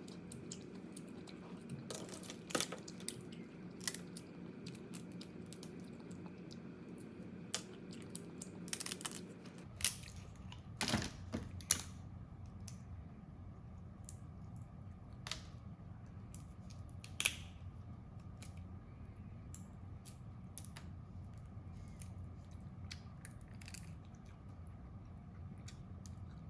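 Crab being eaten: scattered small clicks and cracks of shell being broken and bitten, with a few louder snaps in the first half.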